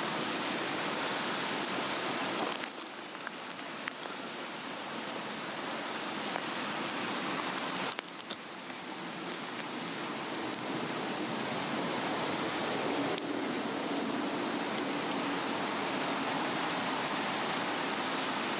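Swedish torch log burning on a fire stand: a steady rushing fire noise with a few faint crackles, which drops abruptly in level twice and then builds back.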